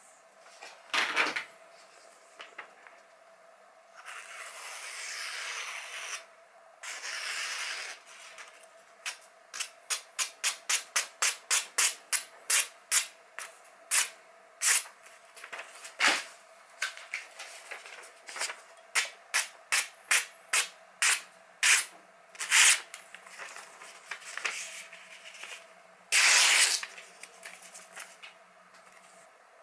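A freshly sharpened Cutco kitchen knife slicing through a glossy magazine page held in the air, as a paper test of the edge. Mostly a quick run of short slices, about two a second, with a few longer drawn cuts through the paper early on and again near the end.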